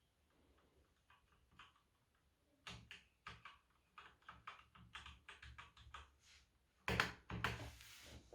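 Keys of a Velocifire VM02WS wireless mechanical keyboard being pressed: a run of separate clicks, several a second, then a louder clatter near the end.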